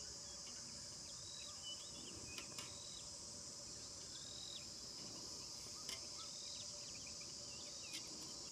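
Steady high buzzing of an insect chorus, crickets or cicadas, in grassland, with short faint chirps and a few sharp clicks.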